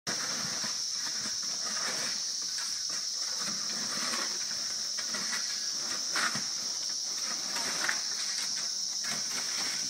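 Steady high-pitched drone of insects, over an uneven rustle of wind and prayer flags flapping, with two brief louder flaps about six and eight seconds in.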